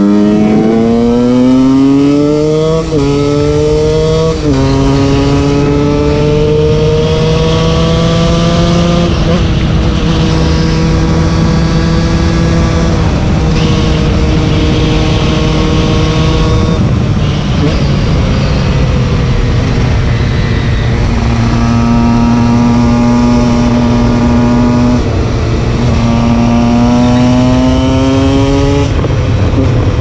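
2008 KTM 125 EXC two-stroke single with a DOMA Six Days pipe, freshly fitted with a new piston and at the end of its break-in, under hard acceleration. Its pitch climbs and drops sharply with two quick upshifts about three and four seconds in, rises slowly to hold a steady cruise, then falls back. It then climbs again with two more upshifts near the end.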